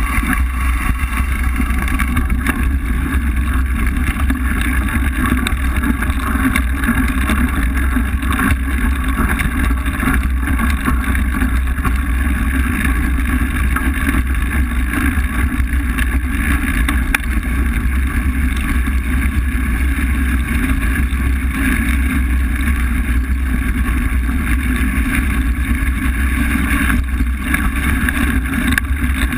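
Steady, loud rumble of a mountain bike riding a gravel and dirt forest trail, heard through a bike-mounted action camera: knobby tyres on gravel, frame rattle and wind buffeting on the microphone.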